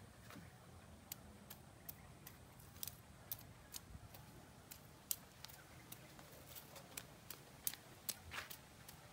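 Faint, irregular clicks and short scrapes of a hand blade cutting weeds out of garden soil, with a longer scrape near the end.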